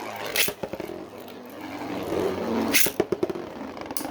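Three 3D-printed Beyblade spinning tops whirring in a plastic battle stadium, with sharp clacks as they collide; the loudest hits come about half a second in and near three seconds in.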